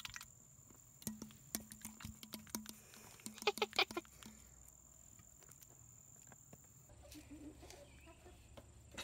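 Soft wet clicks of an animal drinking from a plastic soda bottle held to its mouth. The clicks come irregularly for about three seconds, and the loudest few cluster just before they stop.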